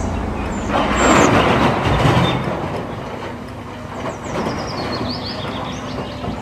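Wheel loader's diesel engine running while a bucketload of dirt pours into a dump truck's bed, the rushing pour loudest about one to two and a half seconds in. Birds chirp later on.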